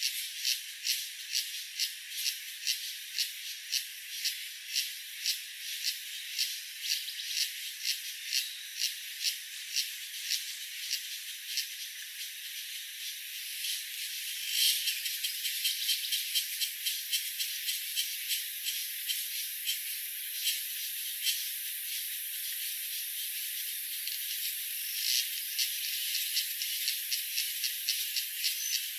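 Insects calling in the background: short chirps repeat evenly at about two a second over a steady high hiss of insect noise, with the chirps growing denser near the end.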